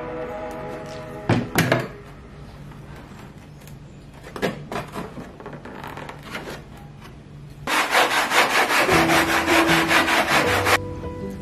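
Sanding block rubbed quickly back and forth over a foam-board nose section, about seven strokes a second for roughly three seconds in the second half. Earlier there are a few light knocks and handling sounds under soft background music.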